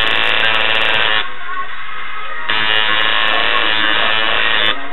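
Tattoo machine buzzing in two spells, cutting out for about a second a little way in and stopping again near the end.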